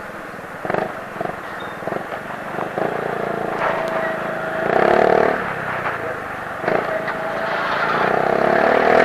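Motorcycle and vehicle traffic passing, with engine notes that swell about five seconds in and again near the end, over a steady background of road noise and scattered clicks.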